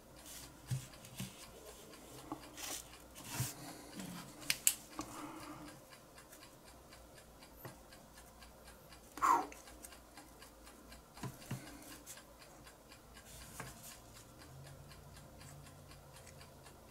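Small metal lighter parts handled in the fingers: scattered faint clicks, taps and rubs as the unscrewed valve assembly and the butane tank are turned over and set down, with one louder brief scrape a little past halfway. A faint steady ticking runs underneath.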